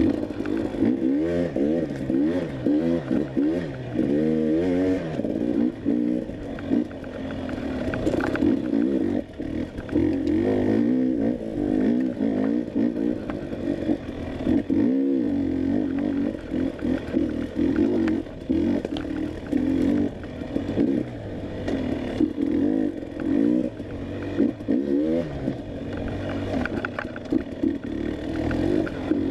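Dirt bike engine at race pace, revving up and falling back again and again as it is worked through the gears, with knocks and clatter from the bike over rough ground. The engine note drops away briefly about 15 seconds in, then picks up again.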